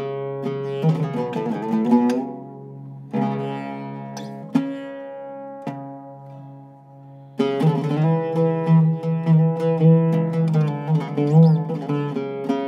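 Zeryab oud with a cedar top being played solo: a phrase of plucked notes, then a slower stretch of single notes left to ring and fade, then fast tremolo picking from about seven seconds in.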